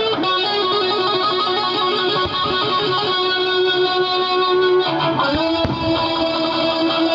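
Music with guitar, playing steadily with held notes and a moving melody.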